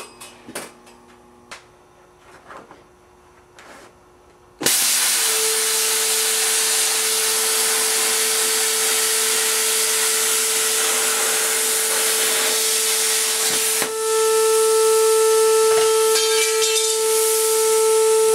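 Hypertherm Powermax 1000 plasma cutter torch cutting steel plate. After a few faint clicks, a loud steady hiss of air and arc with a constant whine starts suddenly about four and a half seconds in. About fourteen seconds in it grows louder, with higher whistling tones added.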